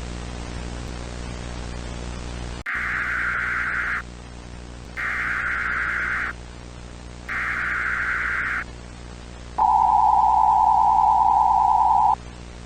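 Emergency Alert System SAME header: three buzzy data bursts, each a little over a second long with short pauses between, then the steady EAS attention tone for about two and a half seconds. It follows a few seconds of steady static hiss and hum.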